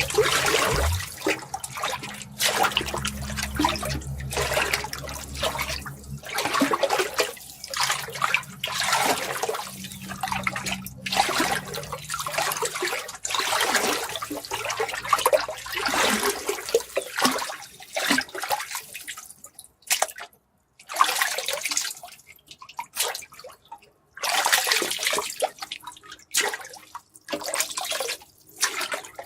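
Water splashing and gushing in irregular bursts, each a second or two long, with short breaks between them and a few brief silences near the end.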